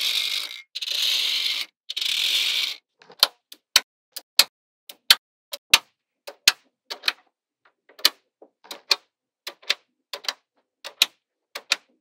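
Magnetic balls clicking together: three rasping rattles of about a second each in the first three seconds, then sharp single clicks, irregular and about two a second, as balls and strips of balls snap onto a magnet-ball grid.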